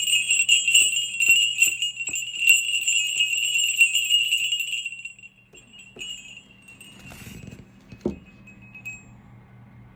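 A set of solid brass sleigh bells shaken, jingling and ringing for about five seconds, then dying away. A few lighter jingles and a soft knock follow as the bells are handled.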